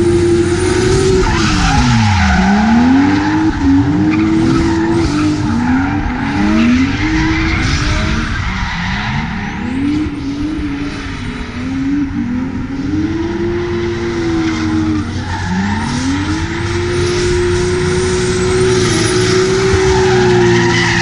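Nissan Silvia S15 drift car with a 2JZ-GTE straight-six, driven hard in a drift: the engine is held high in the revs, dips sharply about two seconds in, then falls and climbs again again and again as the throttle is lifted and reapplied. Rear tyres squeal and skid underneath throughout.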